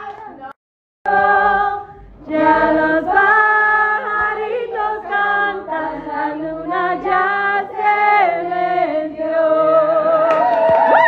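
A group of voices singing a tune together in long held notes. It comes in after a brief cut-out of sound just after the start.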